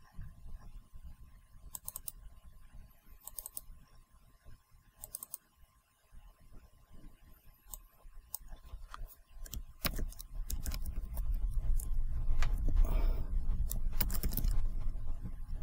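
Computer mouse clicks and keyboard typing: scattered clicks, then a quick run of keystrokes near the end. A low rumble comes in about two-thirds of the way through and is the loudest sound.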